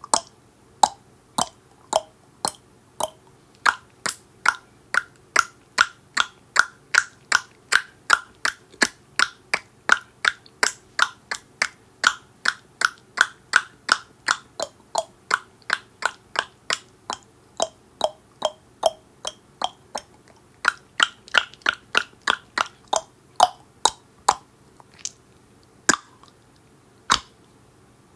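A person clicking their tongue in a steady rhythm, about two clicks a second, with the pitch of the clicks shifting up and down. Near the end the clicks slow, with a couple of longer gaps.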